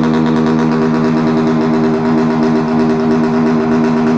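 Honda Titan 160's single-cylinder four-stroke engine idling steadily and loudly through a modified tin straight-pipe exhaust with its baffle filter removed.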